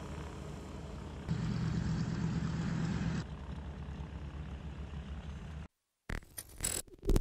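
Douglas C-47's twin radial engines running steadily in flight, with an even pulsing beat; louder for a couple of seconds about a second in. The engine sound cuts off suddenly near the end and a few short glitchy electronic crackles follow.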